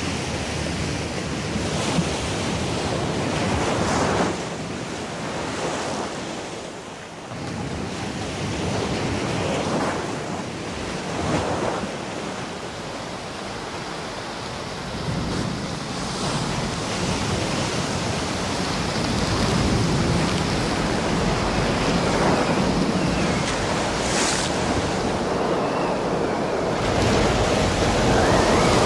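Stormy wind blowing over heavy ocean surf, waves breaking and surging at irregular intervals of a few seconds.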